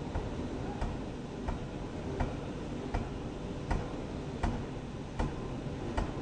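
Pneumatic forging hammer striking in a steady rhythm: about nine sharp blows, roughly three every two seconds, over a steady running noise.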